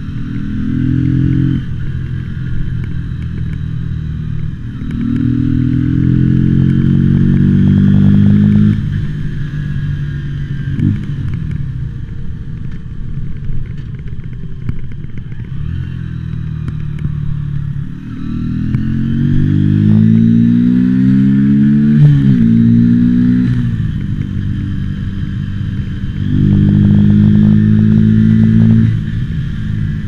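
Mutt Akita motorcycle's single-cylinder engine running through town, accelerating with rising revs several times and easing back to a lower steady run between pulls, with a gear change midway through the longest pull. A few crackling noises sound over the engine.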